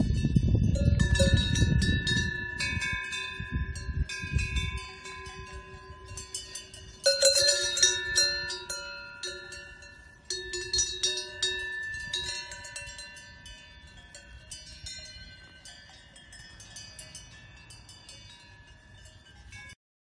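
Cowbells on grazing cows clanking and ringing irregularly at several pitches, with fresh loud clangs about seven and ten seconds in, then fading. A low rumble sits under the first few seconds.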